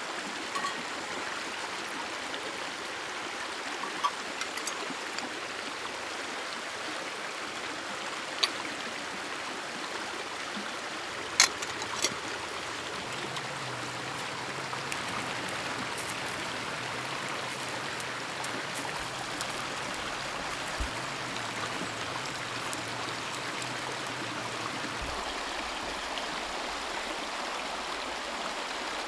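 River water flowing steadily, with a few short sharp clicks over it, the loudest about eleven seconds in.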